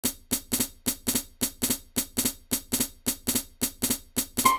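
Music intro played on drums alone: a steady, brisk pattern of snare and hi-hat hits, about three to four a second. Melody notes come in right at the end.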